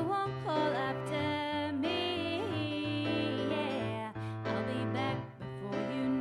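Live song: a woman singing a held, gliding melody over chords and bass notes played on a Nord Stage 2 keyboard.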